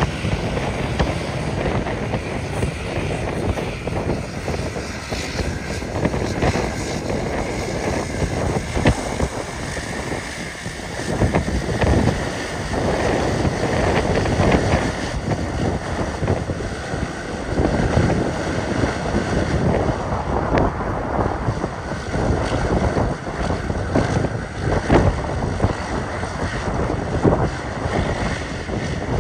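Gusty wind buffeting the microphone: a continuous rushing rumble, heaviest in the bass, rising and falling in uneven swells.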